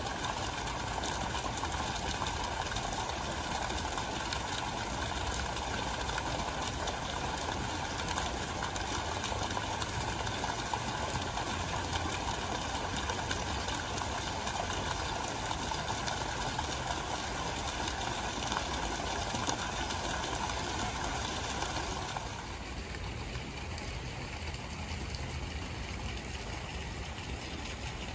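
Steady splashing of fountain jets falling into a pool, turning quieter and duller about three-quarters of the way through.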